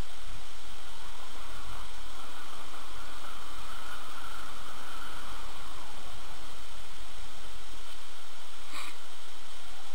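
Wind rushing over the microphone together with the hiss of skis sliding and carving on packed snow during a downhill run; steady noise that swells in the middle, with one short click near the end.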